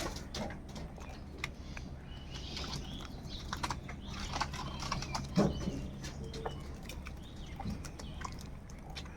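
Crows calling, mixed with many short sharp clicks and taps over a steady low hum; the loudest sound is a single sharp knock about five seconds in.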